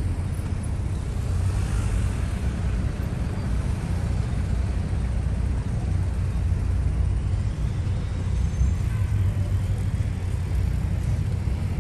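Double-decker sightseeing bus driving through city traffic, heard from its open top deck: a steady low rumble of the bus and the road.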